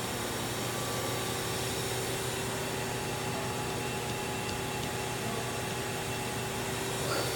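A steady hum with a constant hiss and no distinct events.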